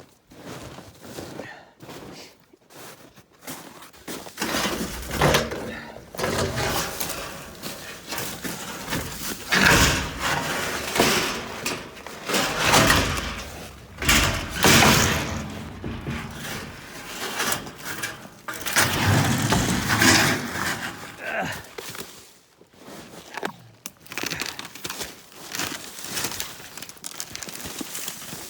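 Irregular crunching and rustling of footsteps through frozen brush, with clothing rubbing over the microphone, dying down briefly after about twenty seconds.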